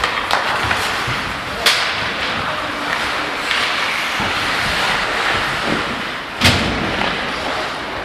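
Ice hockey play on a small rink: skates scraping the ice and sharp stick-and-puck knocks, with one loud thump about six and a half seconds in.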